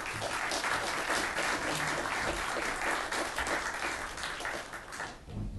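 Audience applauding a speaker's introduction, a steady patter of many hands clapping that fades out near the end.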